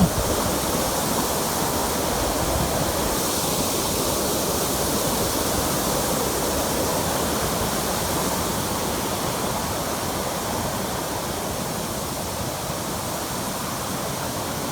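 Steady rush of a waterfall, water pouring and splashing over rock, easing off a little in the last few seconds.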